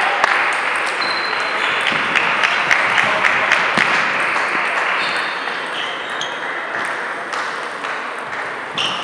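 Table tennis ball clicking against bats and table in a quick rally, many sharp clicks in irregular succession over a steady background din from other games in the hall.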